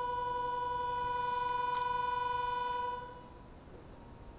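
A steady electronic buzzer tone at a railway station platform cuts off about three seconds in. Two short hisses come near the middle.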